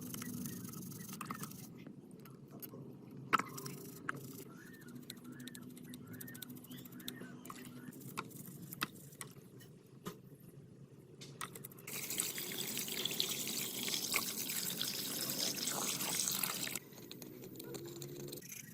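Faint clicks and light scrapes, then a steady hiss of running water for about five seconds that cuts off suddenly.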